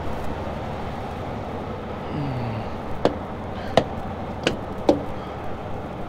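Four sharp knocks of a wooden tire-check stick tapping the semi truck's drive tires and running gear, a rough check of tire inflation, over the steady hum of the truck's diesel engine idling to warm up.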